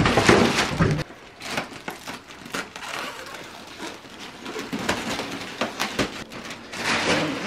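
Clear plastic packaging bag rustling and crinkling as it is cut with scissors and pulled open, louder in the first second.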